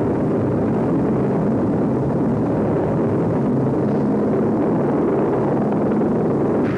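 Aircraft engine running: a loud, steady rumble with a low droning hum.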